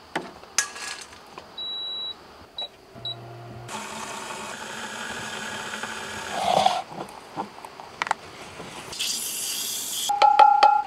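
An electronic beep sounds, one longer high tone followed by two short ones. After that comes about three seconds of steady hiss, and near the end a short, loud pitched squeak.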